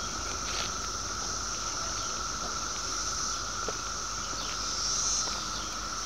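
Chorus of 17-year periodical cicadas: a steady, unbroken drone with a mid-pitched whine and a higher whine held together, the high one swelling slightly about five seconds in.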